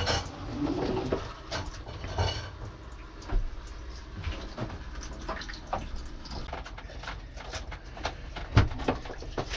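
Water trickling and dripping in a camper trailer's plumbing, with scattered clicks and knocks of handling.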